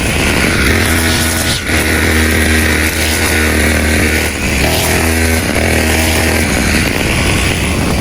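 Two-stroke brush cutter with a 45 mm bore running loud at high throttle while cutting grass. Its note dips briefly twice, at about a second and a half in and again past four seconds.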